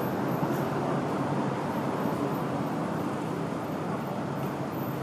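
Steady city road traffic: a continuous wash of engine and tyre noise from cars, taxis and buses passing on a busy street.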